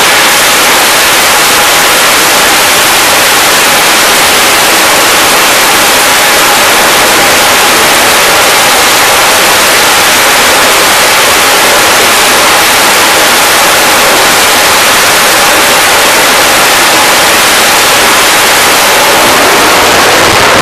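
Twin jet engines of an F/A-18 run at full power on a carrier catapult, launching off the deck. The roar is so loud that it fills the recording as an even, hiss-like noise that does not change.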